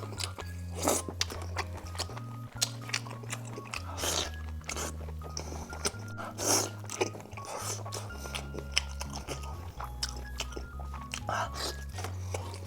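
Crunchy bites and chewing of deep-fried skewers, a run of short sharp crunches with a few longer chews, over background music with a low bass line that changes note every second or two.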